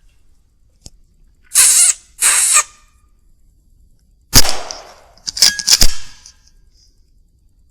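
A single shot from a Weihrauch HW100 .22 pre-charged air rifle a little over four seconds in, followed about a second later by a quick run of sharp mechanical clicks. About a second and a half in come two short hissing rustles.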